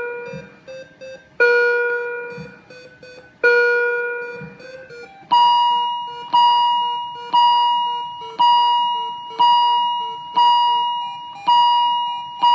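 Alarm-clock ringtone: a chiming melody of plucked, decaying notes, the main note struck about every two seconds at first, then about once a second and higher from around five seconds in, with softer notes in between.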